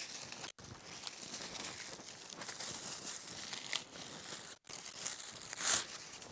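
Dry twigs and dead branches crackling and rustling as sticks are gathered by hand for a campfire, with a louder crunch near the end.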